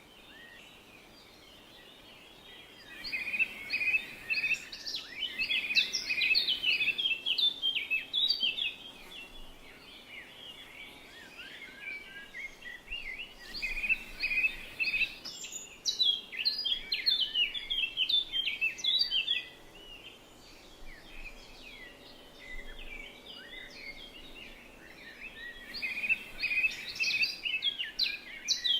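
Birds singing in three long bursts of quick chirps and trills, with quieter spells between.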